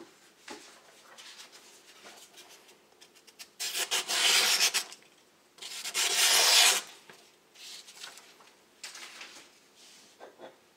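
Knife blade slicing through a sheet of paper in two long cuts, each a dry hiss lasting over a second, the first just under four seconds in. The edge is a little dull but cuts the paper fairly clean. Softer paper rustles come before and after the cuts.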